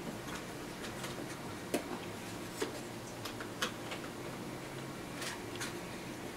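Irregular light clicks and taps of a small tool probing inside the front of a 1985 Emerson portable TV set, working loose a penny lodged in it. About five sharper ticks stand out over a low steady hum.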